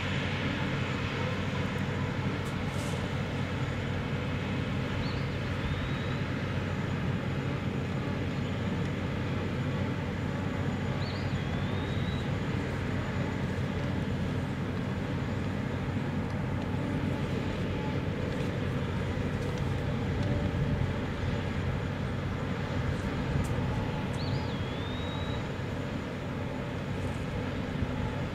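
Steady drone of heavy equipment running on a natural gas drilling pad: a low, unbroken hum with several steady tones. A few faint short high whistles come through over it.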